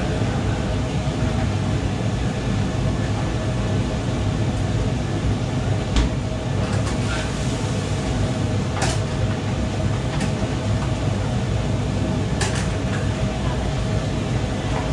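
Steady roar of a commercial kitchen's extractor hood and lit gas wok burners, with a constant hum. Several sharp knocks and clanks of cookware and utensils break through it.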